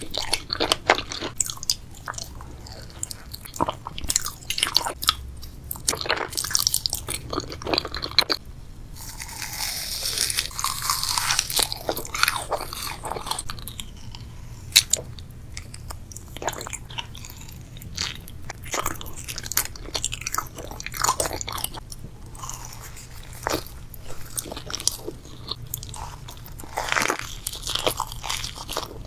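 Close-miked eating sounds of a person biting and chewing soft mochi: strawberry daifuku, pink mochi and a matcha crepe roll. They come as a dense run of short mouth clicks and smacks, busiest about a third of the way in.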